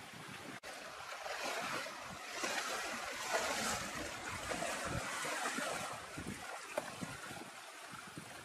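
Flowing river water, a steady rushing noise that swells louder through the middle.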